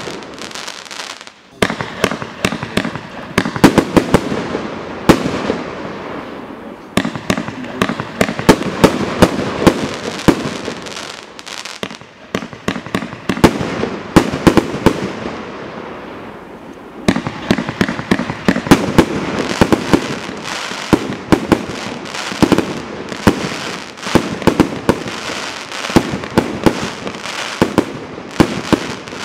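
Multi-shot cake fireworks firing continuously: shells launching and bursting, and dense crackling from brocade-crown and crackling-star effects. Many sharp pops, with a few brief lulls between volleys.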